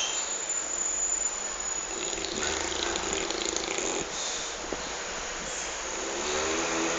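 Dog snoring in its sleep: a noisy breath about two seconds in, then a pitched snore starting near the end.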